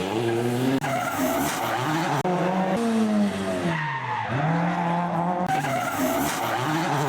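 Hillclimb race car engine at full attack, its note repeatedly climbing and then dropping through gear changes and braking for corners, with tyres squealing. There are abrupt breaks in the sound about one and two seconds in, and a deep drop in pitch about four seconds in before it climbs again.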